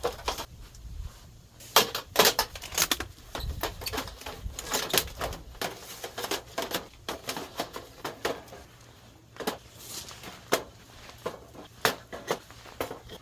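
Scattered light clicks and knocks at an irregular pace, like small objects being handled and set down in a small enclosed space.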